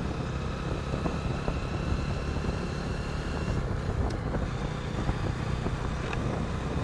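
Motorcycle running steadily on the road, recorded by a helmet-mounted phone, with wind noise over the microphone: a dense, even rumble.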